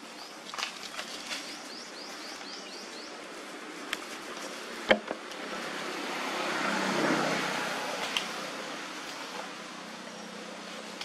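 Outdoor forest ambience with a steady background hiss. A run of short, high chirps comes in the first few seconds and a sharp click about five seconds in. A broad rushing noise swells and fades in the middle.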